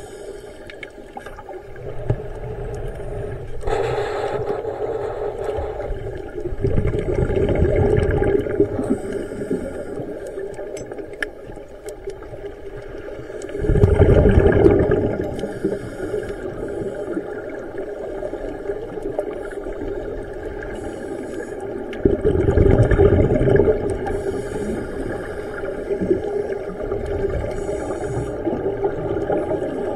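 Scuba diving heard underwater: a diver breathing through a regulator, with a surge of exhaled bubbles rumbling past every several seconds over a muffled steady background. The loudest burst comes about halfway through.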